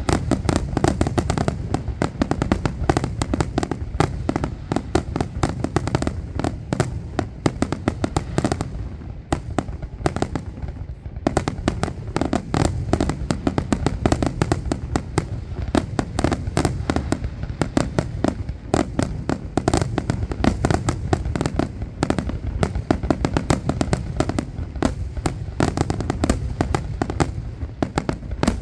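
Fireworks display: aerial shells bursting in a dense barrage of rapid bangs and pops, thinning briefly about a third of the way through before picking up again.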